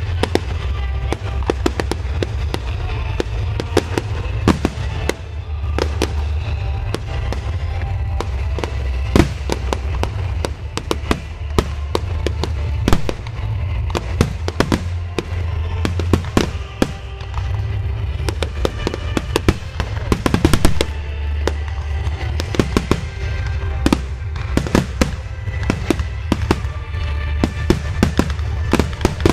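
Aerial fireworks display: shells bursting in quick succession, several loud bangs and pops a second throughout.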